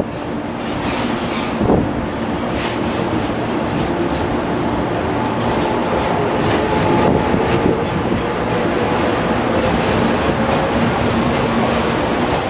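JR Kyushu 415 series electric multiple unit running along the station track, a steady train rumble that slowly grows louder as it comes past.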